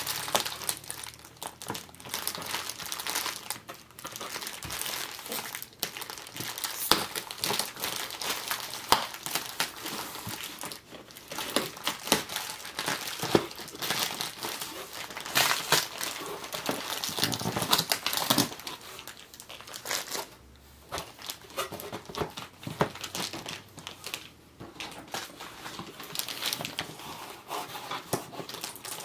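Plastic packaging crinkling and rustling, with irregular crackles and some tearing, as toy parts are unpacked from their wrappings.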